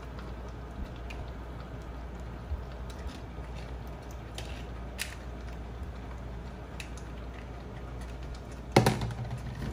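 Shredded cooked chicken dropped by hand into a pot of broth, with faint scattered taps and clicks over a steady low hum. A single sharp knock with a brief ring comes near the end.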